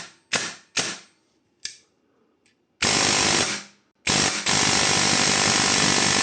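An airsoft electric gun (AEG) fitted with a PX1 piston is firing. First come several single shots, each a sharp crack that dies away quickly, about half a second apart. Then it fires a short burst of just under a second, and after a pause a longer, unbroken burst of about two seconds.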